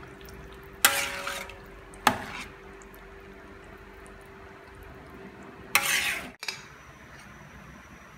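A spoon stirring thick tomato and ground-pork sauce in a pan, scraping and clanking against the pan about a second in, again at two seconds and near six seconds, over a steady hum. The sound cuts off abruptly shortly after.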